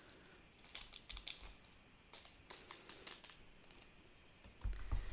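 Faint, irregular light clicks and ticks as tiny clay carrot and grass sprinkles are sprinkled onto slime, with a low thump near the end.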